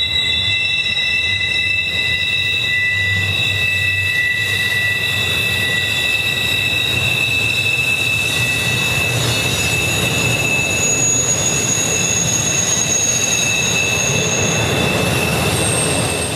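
Model trains running on the layout track: several steady, high-pitched squealing tones over a low rumble, fading out at the very end.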